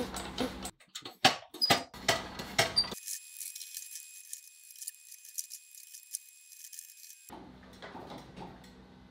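Rapid metallic clinks and knocks of workshop gear being handled for the first few seconds, then a faint hiss and a low, steady room hum.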